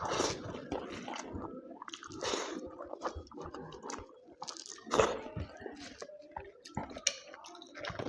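Close-up eating sounds of mutton curry: wet chewing, squishing and smacking at an irregular pace, with one louder smack about five seconds in.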